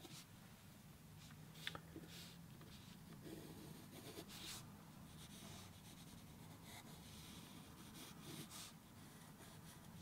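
Faint pencil strokes scratching on paper: a few short strokes with pauses between them.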